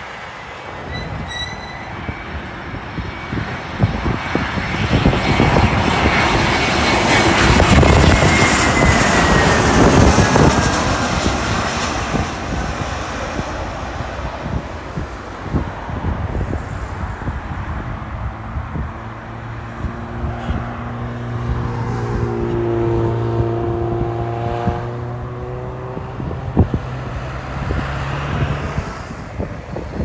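Jet aircraft passing on landing: a loud rush of engine noise with a high whine sliding down in pitch, loudest about a third of the way in. In the second half comes a lower, drawn-out squeal with several pitches gliding slowly down.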